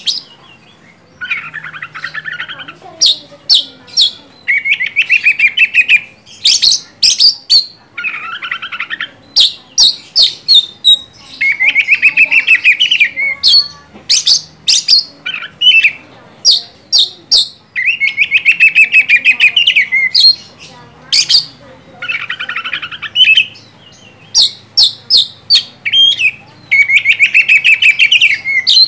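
Oriental magpie-robin singing loudly and without pause, in the full 'gacor ngeplong' style: sharp, high whistled notes alternate with rattling trilled phrases of about a second each, lower in pitch.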